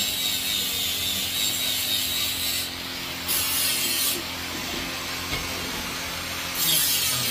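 Rough scraping and rushing noise as an iron rod stirs and drags through molten aluminium and dross in a charcoal-fired furnace. The hiss eases twice, around three seconds in and again for a couple of seconds before the end.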